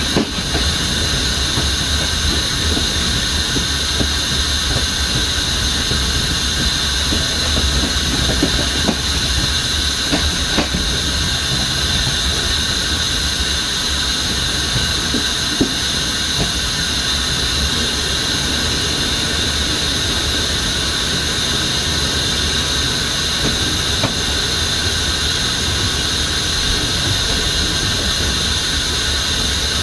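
Passenger train rolling on the rails, a steady rumble with a continuous high-pitched wheel squeal over it and a few scattered clacks from the track.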